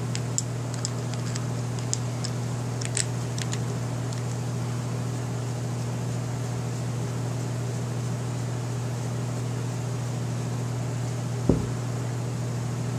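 Steady low electrical hum throughout, with a few light metallic clicks in the first few seconds as a nut driver loosens the nuts on a bathroom exhaust fan motor. A single knock comes near the end.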